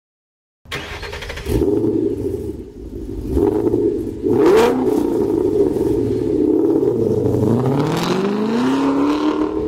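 Car engine revving. It starts just under a second in, wavers through several blips, then climbs steadily in pitch over the last two seconds. Two short sharp hits cut through it, about a second and a half in and again near the middle.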